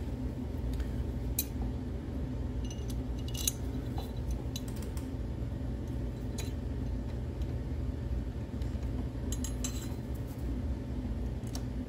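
Light metal clicks and clinks of a CNC footpeg, its mounting pin and a wrench being handled while the peg is fitted to its mount: a handful of scattered small clicks, a few close together near the middle and again later, over a steady low hum.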